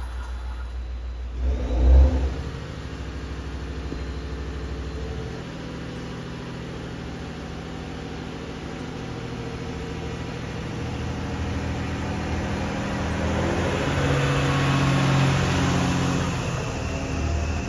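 JR West DEC700 electric-drive diesel railcar's engine running as the railcar departs the station, building in level over the last few seconds with a faint whine rising in pitch near the end. A brief loud thump comes about two seconds in.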